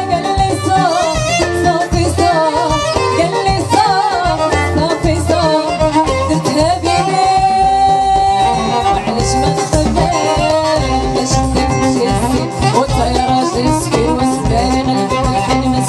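Live Moroccan chaabi music from a small band: a steady, driving drum beat under keyboard and electric guitar, with a wavering, ornamented melody line.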